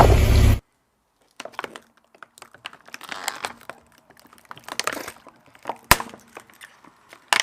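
A loud rushing noise cuts off abruptly about half a second in. After a short silence, something brittle crackles and snaps as it is crushed, in scattered small cracks, with one sharp crack near six seconds.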